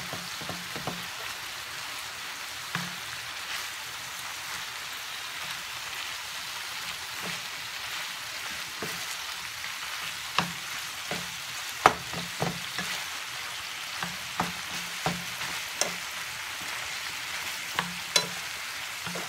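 Ground beef and green bell pepper sizzling as they brown in a frying pan. They are stirred with a wooden spatula that clicks and knocks against the pan now and then, loudest about twelve seconds in.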